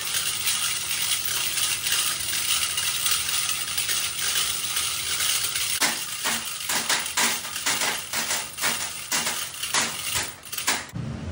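Steel hoist chain rattling and clinking as it is hauled, a continuous jingle at first, then from about six seconds in a quick run of separate clinks.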